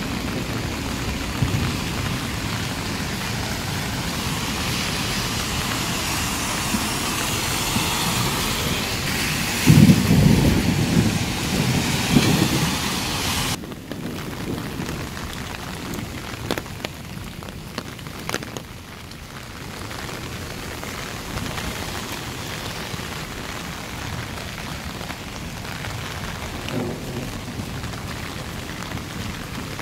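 Heavy rain pouring onto wet pavement in a thunderstorm, with a loud low rumble about ten seconds in. A little past halfway it changes suddenly to quieter, lighter rain with scattered small pattering clicks.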